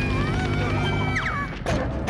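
Cartoon soundtrack: background music under high, wavering squeaky character vocalisations, with a quick falling glide a little past halfway and a crash effect near the end.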